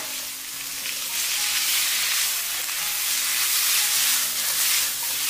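Sliced bitter melon, carrot and wood ear mushroom sizzling in hot oil in a wok over high heat while being stir-fried with a spatula: a steady frying hiss.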